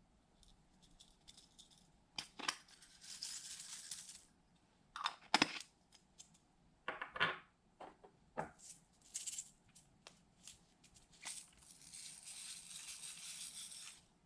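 Hands working slime and makeup-glitter products at close range: scattered sharp clicks and taps, with two stretches of crackly, hissing scraping, one a few seconds in and one near the end.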